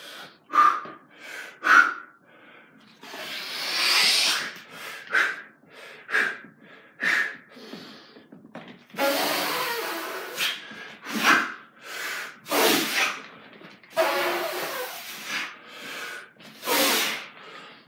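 A man breathing hard from the strain of TRX strap pull-ups: short, sharp breaths with several long, forceful hissing exhalations between them.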